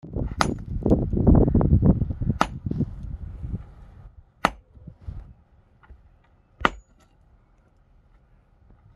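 Sledgehammer striking a large rock: four hard blows about two seconds apart, each with a short metallic ring. A loud low rumbling noise runs under the first few seconds.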